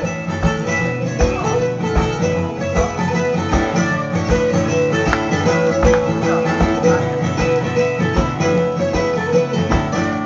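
Live instrumental break on acoustic guitars: strummed chords under a repeating picked lead line, with a steady low thump on the beat about twice a second.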